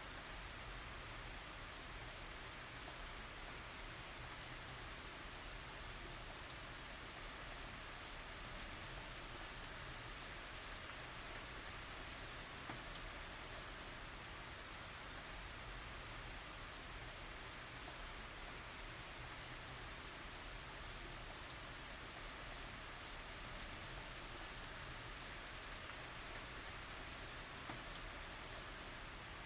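Steady tropical rain falling, a dense even hiss of drops with fine patter, without thunder.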